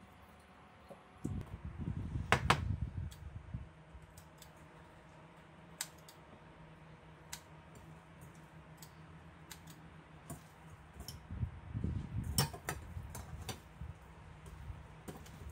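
Kitchen handling sounds: a stainless steel colander of wet seaweed stems clinking against the wooden cutting board, with fingers rustling and squishing the stems and sharp metal clicks. Near the end, kitchen scissors snip the stems. A steady low hum runs underneath.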